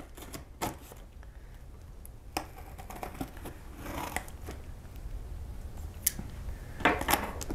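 A knife slicing through the packing tape on a cardboard shipping box: irregular scraping cuts and small clicks of the blade on the cardboard, with a few louder scrapes near the end.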